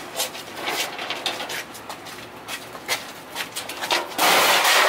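Irregular metal clanks and rattles of a barbecue grill being handled and lifted off a cart, followed about four seconds in by a loud rushing noise lasting about a second.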